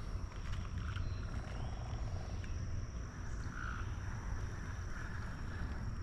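Outdoor creek-side ambience: a low steady rumble, a thin steady high insect tone, and a few short animal calls, a couple of seconds apart.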